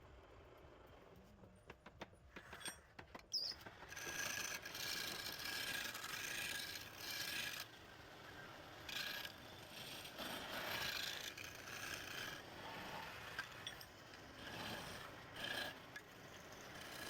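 A tool scraping wood being turned on a lathe, in uneven strokes, after a few light clicks in the first seconds.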